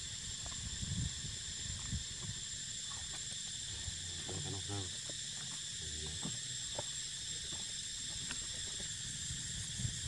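Steady high-pitched drone of insects, with a brief wavering call about four seconds in and a few soft low knocks.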